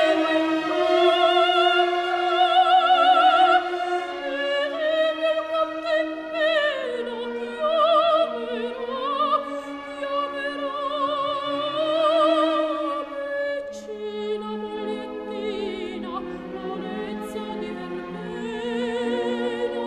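Background music: an operatic voice holding long notes with a wide vibrato over an orchestral accompaniment.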